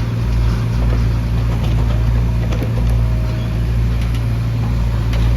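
Diesel engine of a Mahindra backhoe loader running steadily at working speed, with a few faint clanks.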